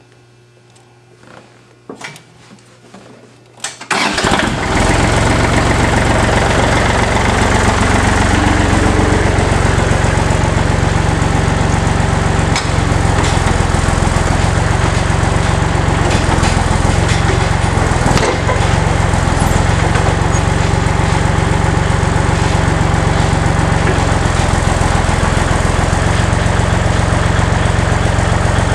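A few faint clicks, then a Kubota tractor-backhoe's engine starts about four seconds in and keeps running steadily, with a couple of sharp knocks along the way.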